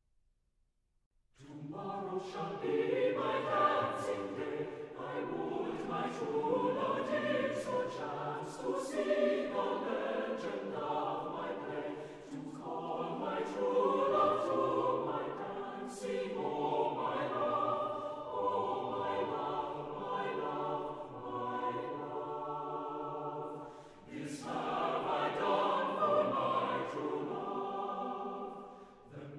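A choir singing choral music, starting about a second and a half in after near silence.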